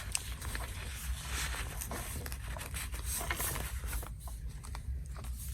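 Paper pages and lace of a handmade junk journal rustling and rubbing as they are handled and turned, with small scattered ticks, over a steady low hum.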